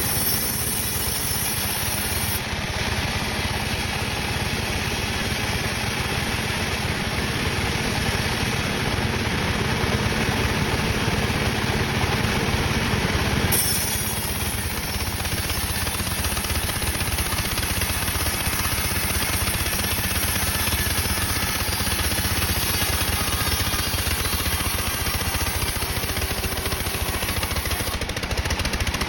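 Engine-driven sawmill running steadily while processing teak logs, with a slight change in its sound about halfway through.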